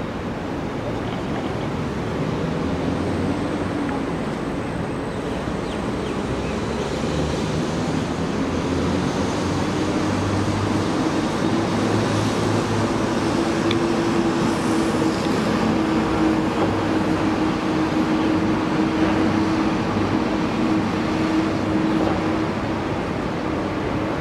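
Steady airport apron rumble from aircraft engines, with a low hum that swells slightly in the middle, over a hiss of wind noise.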